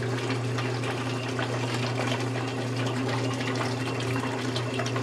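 Maytag top-load washer draining: a steady motor hum with water rushing as the pump empties the tub.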